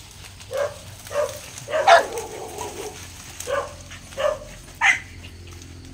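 Hunting dogs barking while trailing a small animal's scent through brush: about six short, irregularly spaced barks, the loudest about two seconds in.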